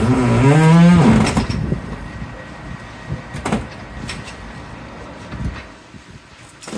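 A heavy truck door creaking loudly on its hinges as it is swung, a wavering squeal lasting about a second and a half, followed by a few sharp metal knocks a couple of seconds later.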